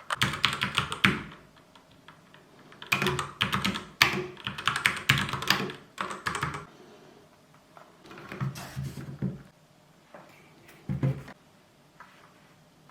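Typing on an Isy IGK-5000-BK keyboard: fast runs of key clicks in several bursts with short pauses between them.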